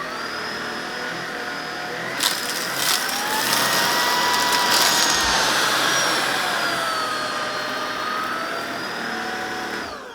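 Tineco Pure One X cordless stick vacuum running on thick pile carpet in auto mode, its motor whine climbing to a higher pitch a few seconds in as its dirt sensing switches it up to max power, then easing back down. A few sharp crackles of tea and crackers being sucked up come early on, and the motor winds down in a falling whine at the end.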